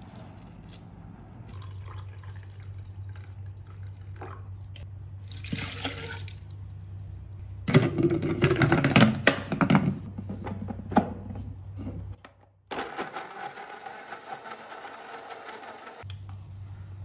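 Tefal countertop blender crushing frozen berries: a loud clattering rattle of frozen fruit against the jar for a couple of seconds, then after a short break the motor running steadily as the mix turns to a smooth purée.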